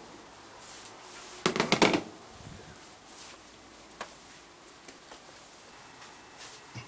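Kitchen items being handled on a counter: a quick cluster of clicks and rattles about a second and a half in, then a single click and a few light taps.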